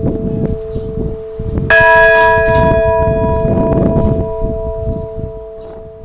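Orthodox church bell struck with its clapper about two seconds in, a bright chord of ringing tones that fades slowly over the next few seconds, over the hum of an earlier stroke still sounding. Wind rumbles on the microphone throughout.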